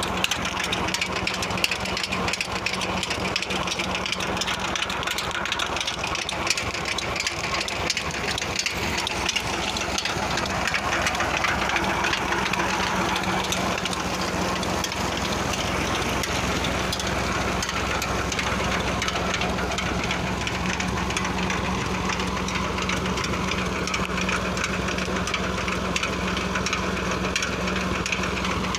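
Tractor engine running steadily at a constant pitch while driving a tubewell pump, with the rush of water pouring from the pump's outlet pipe.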